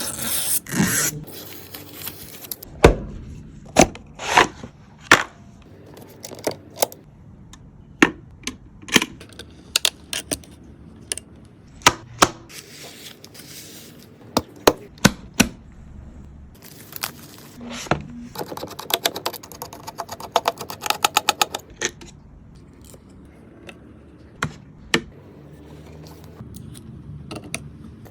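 Hard plastic and metal clicks and knocks of computer parts being handled and fitted together during a PC build, one at a time with pauses between. About nineteen seconds in comes a quick run of rapid, even ticks lasting a couple of seconds.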